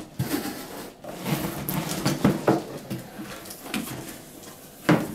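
A large cardboard box and its cardboard packing being pulled off a boxed subwoofer: irregular scraping and rustling of cardboard with several knocks, the loudest just before the end.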